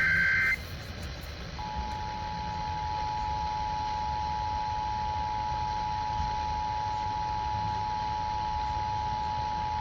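The end of an Emergency Alert System SAME header data burst, a rapid warbling chirp of two high tones, stops about half a second in. About a second later the EAS two-tone attention signal (853 and 960 Hz sounded together) begins, holding steady for about eight and a half seconds, with a low hum underneath. It marks the start of a Required Monthly Test.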